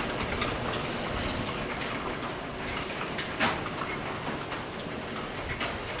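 Overhead sectional garage door closing under its electric opener: a steady rattling rumble as the door rolls down its tracks, with a few sharp clicks about two, three and a half, four and a half and five and a half seconds in. It is closing normally, the photo-eye safety sensors no longer stopping it.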